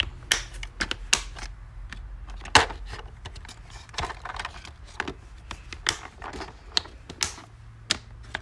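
Clear plastic compartment organizer boxes being handled and moved around, giving irregular sharp plastic clicks and knocks, several a second at times.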